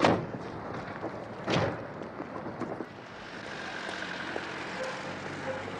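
Two heavy thuds about a second and a half apart, then street traffic: a van's engine running steadily as it drives by.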